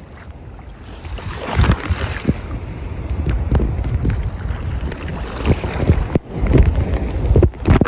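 Ocean water sloshing and splashing right at the microphone while wading in the surf, with wind buffeting the microphone. It turns louder about a second and a half in, with many sudden splashes.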